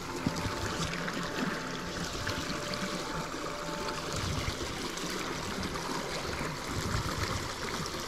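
Small mountain stream running over rocks, a steady rush of water.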